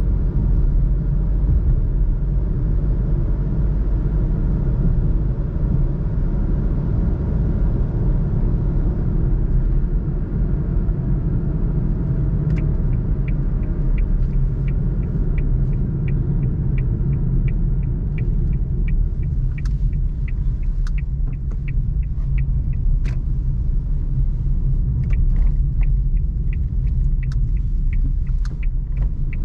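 Suzuki Alto 660cc three-cylinder engine running at low revs in fifth gear at about 50 km/h, heard from inside the cabin with a steady rumble of road and tyre noise. From about twelve seconds in, a light regular ticking, about two a second, joins it.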